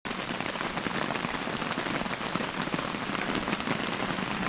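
Steady rain falling on a tarp shelter: a dense, even patter of many small drops.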